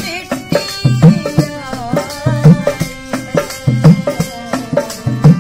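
Harmonium playing a melody over a dholak's repeating hand-drum rhythm, in a rustic folk accompaniment.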